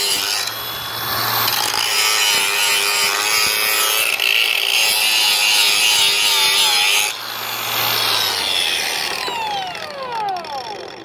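Makita XAG03 brushless cordless 4½-inch angle grinder grinding the surface of a pipe, its motor whine steady under load with a brief dip about seven seconds in. About nine seconds in it is switched off and the disc spins down with a falling whine that fades near the end.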